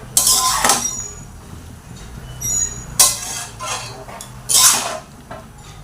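A spatula scraping and knocking against a cooking pan as chopped bottle gourd is stirred through the spices, in about five separate strokes, the loudest about three seconds in and near the end.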